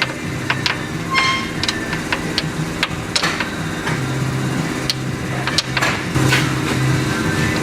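Hand tools at work on a car: irregular metal clicks and knocks from a socket and extension, over a steady low machine hum.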